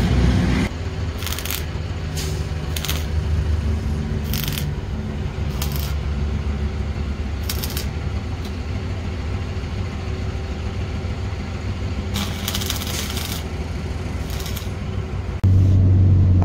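Vehicle engine running steadily while driving, with short metallic jingles or rattles every second or few. Near the end the engine rumble suddenly becomes louder.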